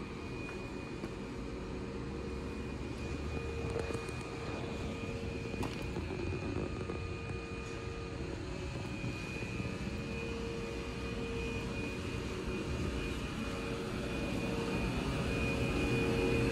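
Steady electrical hum and drone from electric trains standing at the platform, their onboard equipment running, with a steady mid-pitched tone and a fainter high whine. It grows a little louder toward the end.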